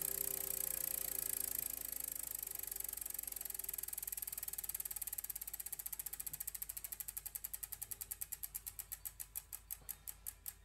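A fast mechanical ticking, ratchet-like, that steadily slows from a rapid whirr to about three clicks a second. It plays under the last notes of background music, which fade out a few seconds in.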